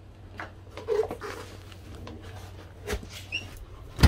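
Shoes scuffing and shuffling on a tile floor as a sneaker is pulled on, with light knocks and rubs. Near the end a door's lever handle clicks sharply.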